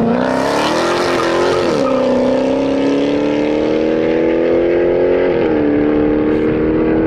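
Car engine accelerating hard through the gears, its pitch climbing and then dropping back at an upshift about two seconds in and again about five and a half seconds in.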